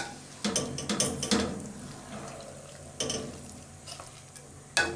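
Wooden spoon stirring and turning chunks of beef shank in an aluminium pot of simmering red wine and meat juices, knocking against the pot several times, loudest at the start and near the end, over a low sizzle.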